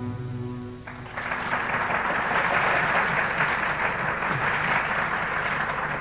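The final chord of a tanbur ensemble's plucked strings rings out and dies away. About a second in, audience applause begins and continues steadily.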